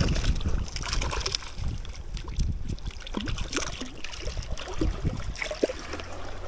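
Water splashing and sloshing at close range, with irregular small clicks and knocks and several short bubbly plops in the second half.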